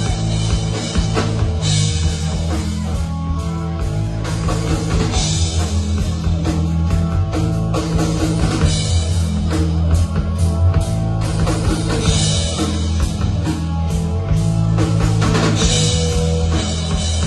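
Rock band playing a song on drum kit, bass and guitars, with a strong, steady bass line under the drums.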